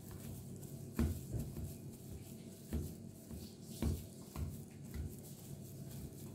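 A fork mashing boiled potatoes on a stainless steel tray, its tines knocking dully against the metal now and then, about five irregular knocks, the loudest about a second in.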